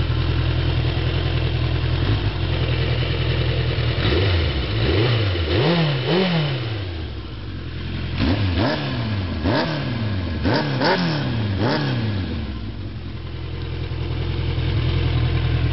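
Suzuki GSX600F's inline-four engine breathing through a homemade exhaust, idling in neutral, then revved in a string of quick throttle blips, each rising and falling in pitch, from about four seconds in to about twelve seconds, before settling back to a steady idle.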